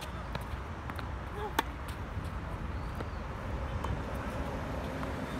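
Tennis ball struck with a racket: one sharp pop about a second and a half in, with fainter clicks of ball and shoes on the hard court, over a steady low background rumble.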